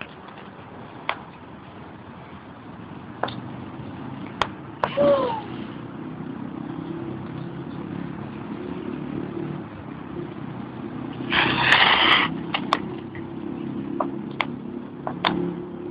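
Bicycle riding on wet pavement: tyre hiss and a steady low rumble with scattered rattling clicks, and a louder burst of hiss about 11 seconds in.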